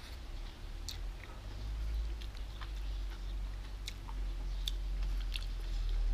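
A person eating noodles from a wok: chewing, with scattered short clicks and mouth smacks, over a steady low hum.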